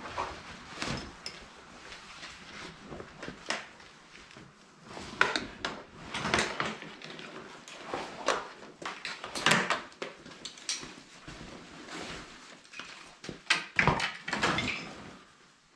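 Heavy fabric snowmobile cover rustling and swishing in irregular bursts as it is pulled off the sled and bundled up, with a few knocks from handling.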